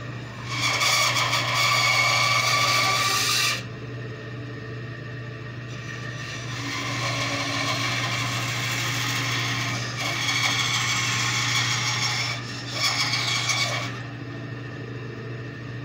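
Bandsaw running with a steady hum while its blade cuts through a wooden blank in four stretches: a loud cut of about three seconds near the start, a quieter, longer cut, then a louder one, and a short final cut just before the end.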